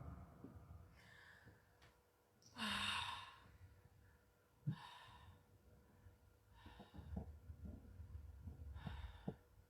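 A person sighing and breathing heavily: one loud, long exhale about three seconds in, then several shorter, quieter breaths.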